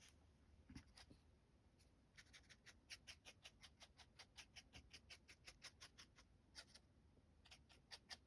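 Faint, quick scribbling strokes on rough cotton rag paper, about five a second, starting about two seconds in with a short break near the end.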